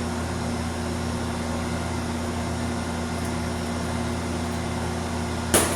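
A steady low mechanical hum, with one short sharp knock near the end.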